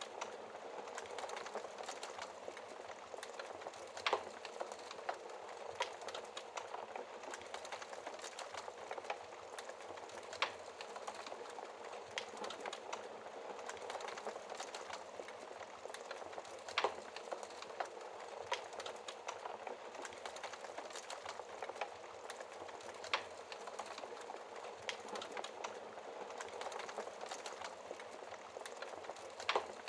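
Wood fire in a fireplace crackling steadily, with a louder sharp pop every six seconds or so.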